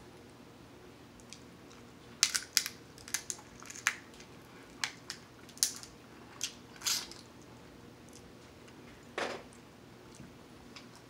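King crab leg shells cracking and snapping as they are broken open by hand: a quick run of sharp cracks from about two to seven seconds in, then one more about nine seconds in.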